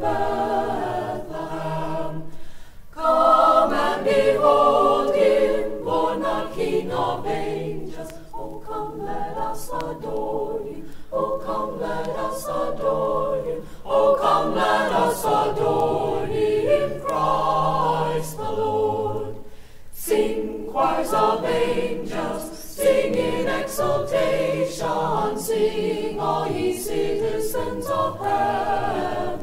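Mixed-voice high school choir singing a cappella in parts, in phrases with short breaks between them.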